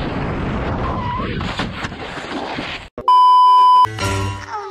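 Steady wind and road noise from a camera on a moving motorcycle, cutting off about three seconds in. A loud, steady electronic beep follows for under a second, then music begins.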